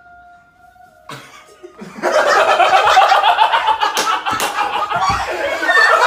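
A faint held tone in the first second, then from about two seconds in loud laughter from a couple of people, with a few sharp smacks around four seconds in.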